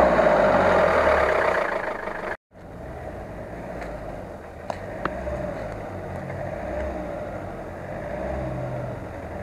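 Off-road 4x4's engine running under load as it drives through deep mud close by. After a sudden break about two seconds in, a fainter steady engine hum comes from vehicles further off, with a couple of small clicks about five seconds in.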